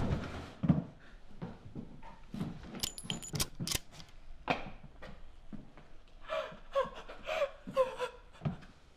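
A woman gasping and panting in shock, with a few sharp clicks about three seconds in and short, high whimpering cries near the end.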